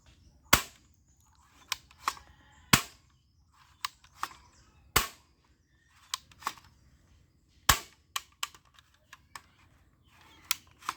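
Blowback airsoft toy gun being fired: four loud, sharp snaps about two to three seconds apart, with lighter mechanical clicks in between.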